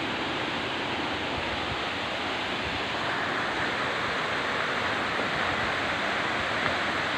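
Rushing water of a rocky mountain stream, a steady hiss of water running over stones that grows a little brighter and louder about three seconds in.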